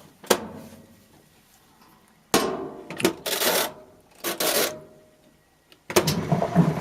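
Hard plastic parts bins knocking and clattering as they are handled, with a few sharp knocks and short scraping, rattling bursts between quiet gaps.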